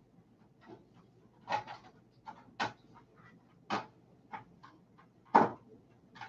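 Paintbrush dabbing and scraping oil paint onto a canvas board: a string of short, irregular taps and scratches, the loudest a little over five seconds in.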